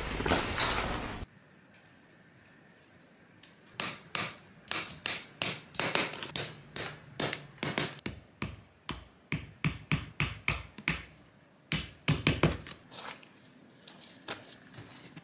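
Handling noise that cuts off about a second in, then a run of sharp taps and clicks, about two a second, from tools working the wooden frame ring into the mouth of a paper lantern. The taps fade to lighter ticks near the end.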